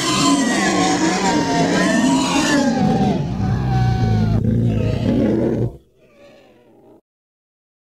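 Monster roar sound effect of the 1998 TriStar Godzilla: a long, loud roar with wavering, gliding pitch over a deep rumble, dying away about six seconds in.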